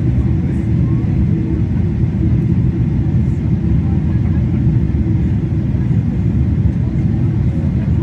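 Jet airliner cabin noise heard from a seat over the wing: a steady, loud, low rumble of engines and rushing air, with a faint steady hum.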